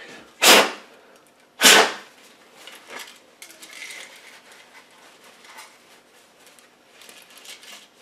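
Two sharp, loud knocks about a second apart as a plastic electronics box is shaken and knocked over a kitchen sink to clear water off it, followed by faint paper towel rustling as it is wiped dry.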